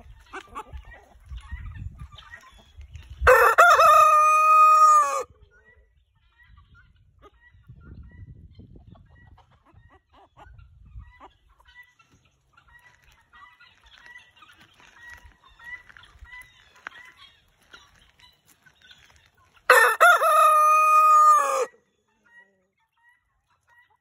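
Brahma rooster crowing twice, once about three seconds in and again near the end. Each crow lasts about two seconds and drops in pitch at the end, with quiet clucking in between.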